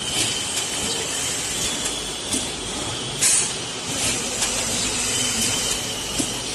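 DB-51/62 contact-heat thermoforming machine running automatically while forming and cutting BOPS round lids: a steady mechanical running noise with a faint high whine and repeated short hisses of air, the loudest about three seconds in.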